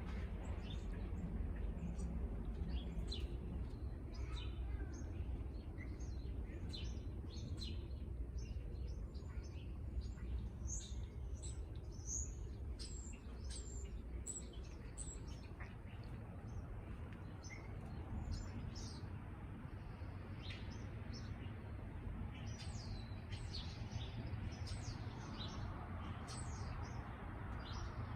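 Small birds chirping: many short, high chirps scattered throughout, busiest in the middle, over a low steady rumble.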